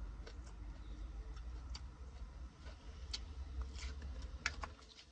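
Close-up chewing of crunchy salad greens: irregular crisp crackles and clicks, with a plastic fork against a plastic bowl. A steady low rumble runs underneath and drops away near the end.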